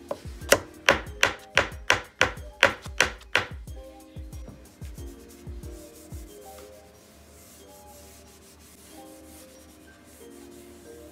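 A small hammer tapping a pin into a wooden chair frame: about ten quick, light strikes in the first few seconds. Then comes quieter hand-sanding, sandpaper rubbing on the wood, with background music throughout.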